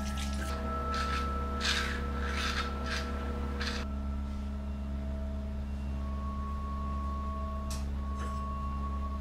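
A sheet of paper rubbed and smoothed flat on a table by hand: about five swishing strokes over the first four seconds, then two short ones near the end. Underneath is a low steady drone with a few held tones.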